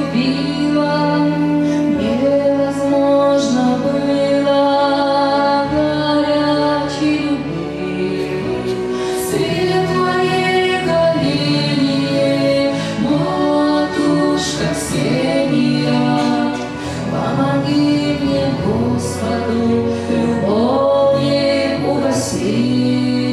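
A woman singing a slow Orthodox spiritual song with vibrato over a sustained accompaniment whose held low chords change every few seconds.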